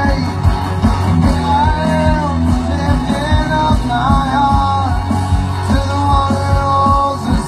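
Rock music with a singer, over a steady drum beat and bass.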